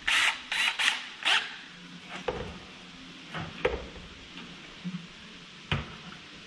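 Four short bursts of noise in the first second and a half as a cordless drill is worked, then a few light knocks and a sharp click near the end as the drill and a metal stove-pipe stack are handled.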